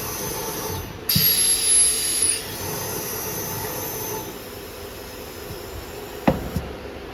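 CNC nesting router at work: a loud hissing burst with a high whine about a second in, lasting about a second and a half, then steady machine noise, with a sharp knock near the end.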